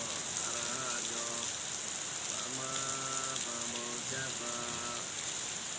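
Heavy rain falling in a steady hiss. A faint voice holding long, level notes, like singing, comes and goes over it.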